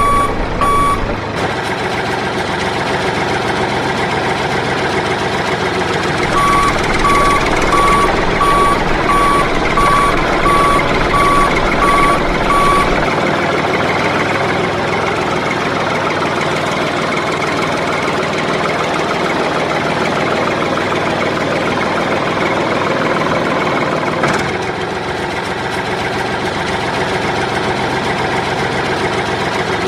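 Vehicle engine running steadily, with a reversing alarm beeping in a steady series, roughly one beep every two-thirds of a second, for the first second and again for several seconds a quarter of the way in. A sharp click about three-quarters of the way in, after which the engine runs a little quieter.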